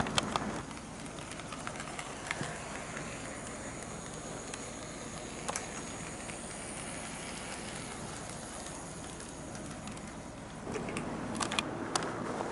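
HO-scale model trains running on sectional track: a small electric motor hum and wheel rumble with scattered clicks as the wheels cross rail joints. Quieter and steadier through the middle, then louder again with a cluster of clicks about eleven seconds in as a train comes past.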